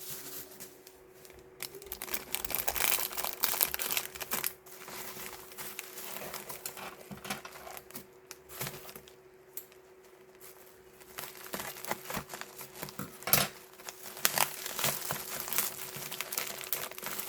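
Packaging being handled and opened by hand during an unboxing, with rustling and tearing in two busier stretches, a few seconds in and again over the last third, and a sharp click partway through the second.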